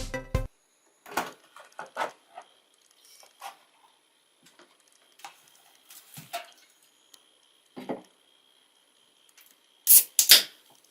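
Scattered light knocks and clicks of small hard objects being handled and set down, with two loud sharp clicks near the end. A faint steady high-pitched whine runs underneath.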